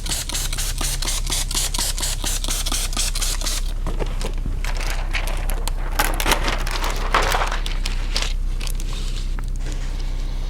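Tint film being worked on car window glass: fast, even crackling strokes at first, then irregular louder scraping and crinkling of the film for a few seconds, over a steady low hum.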